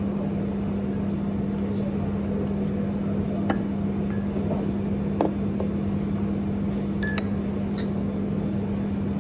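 A steady low hum with a few light glassy clinks scattered through it, typical of cups or glassware being set down.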